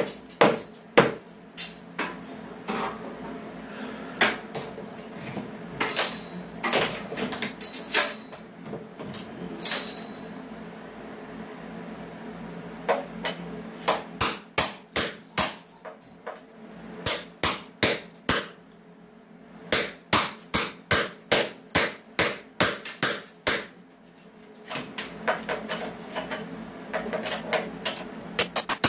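Hammer blows on a masonry wall, knocking a hole through it: irregular runs of sharp strikes with short pauses between, a few of them ringing briefly.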